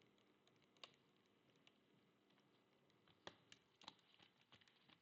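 Faint, scattered small clicks and ticks of a small Phillips screwdriver and screws on a laptop's plastic bottom case, one early and most bunched together about three to five seconds in.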